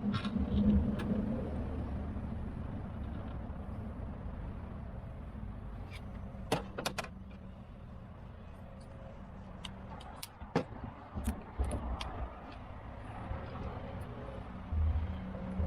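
Scattered sharp clicks and knocks of a car door lock being worked on inside the door, a pair about halfway through and a few more a few seconds later, over a low steady hum.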